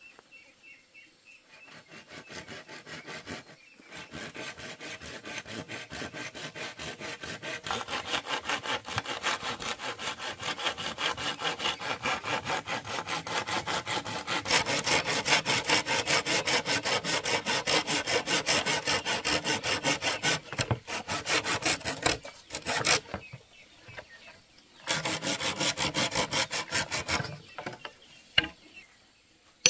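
Hand saw cutting through a green bamboo pole with steady back-and-forth strokes, about three a second, getting louder partway through. The sawing stops for a couple of seconds near the end, then resumes briefly.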